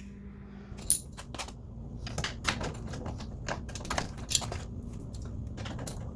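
Socket ratchet clicking in irregular runs of sharp clicks, starting about a second in, as a bolt holding the jet pump assembly is backed out.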